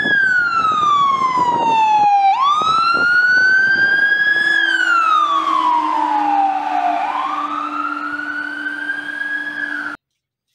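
Fire engine siren wailing in slow sweeps, falling and rising three times, with a steady low hum beneath from about two seconds in; it cuts off suddenly near the end.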